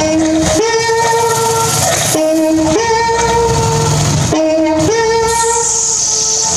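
Electronic improvised music: a looped two-note phrase, a short lower tone stepping up to a longer held higher tone, repeating about every two seconds over a noisy low layer. A high hiss rises over it near the end.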